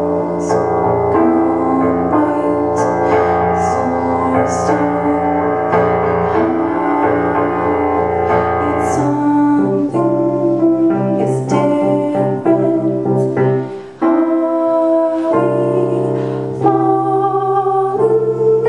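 A woman sings over her own keyboard accompaniment in a slow ballad. Held chords and a steady bass line give way about halfway through to shorter, broken keyboard notes.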